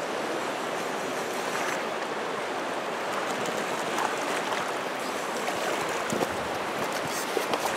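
A fast river running steadily over a rocky cobble bed. About halfway through, a wading boot splashes in the shallows.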